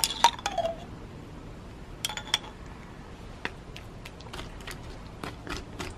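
Light clicks and taps of food-prep handling: a squeezable mayonnaise jar squeezed over a fish, then a spatula spreading the mayonnaise against a plastic cutting board. The clearest clicks come at the start and about two seconds in, with smaller taps near the end.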